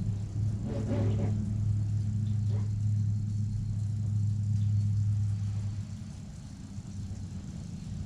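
Steady low motor hum that drops in level about six seconds in, with a few faint brief knocks early on.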